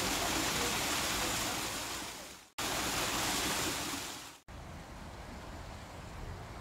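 Steady rush of falling water from a miniature waterfall. It cuts off abruptly at about two and a half seconds, resumes, and cuts off again at about four and a half seconds. After that a much quieter steady hiss remains.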